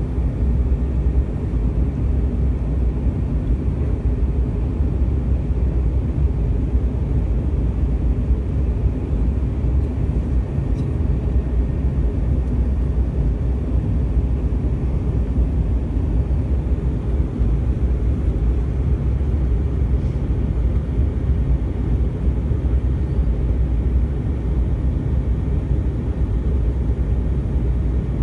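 Steady low cabin roar inside an Airbus A320 in flight, from the jet engines and airflow, heard at a window seat over the wing.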